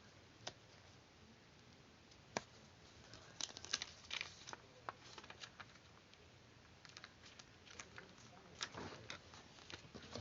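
Faint, scattered light clicks and paper rustles from hands handling and working small paper pieces, with a denser run of clicks a few seconds in and again near the end.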